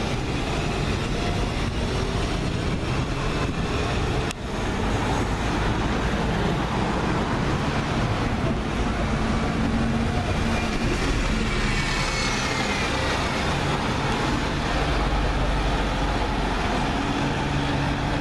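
London double-decker buses pulling away and driving past amid street traffic, with a steady engine rumble. A whine rises and falls as one bus passes close by about ten seconds in.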